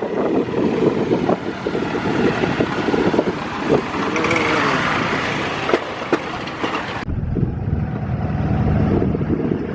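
Motor vehicle on the move: rattling road noise with scattered knocks. About seven seconds in it changes abruptly to a steady low engine drone.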